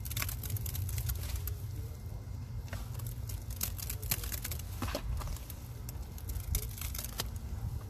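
Hands squeezing and crumbling wet powder paste, with clumps breaking apart and dropping into the container: a run of irregular crackles and crunches over a steady low rumble.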